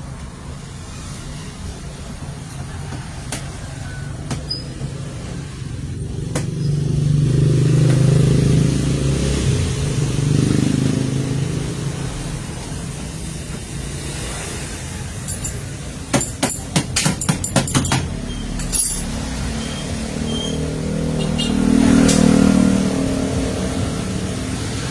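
A low engine-like hum that swells and fades twice, like motor vehicles passing, with a quick run of about eight sharp taps or clicks midway.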